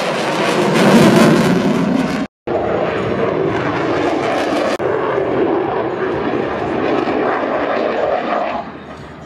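Loud jet noise from an F-22 Raptor's twin afterburning turbofans as it passes overhead: a steady, dense rushing sound. It cuts out for a split second about two seconds in, then drops noticeably in level near the end.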